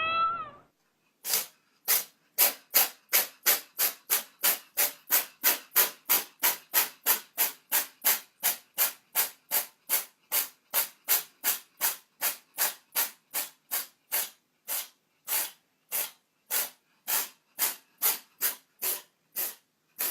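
An animal's quick, breathy huffs, about two a second, starting a second in and slowing a little toward the end.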